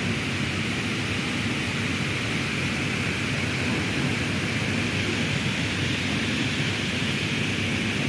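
Water falling down the face of a tall wall fountain, a steady, even splashing hiss.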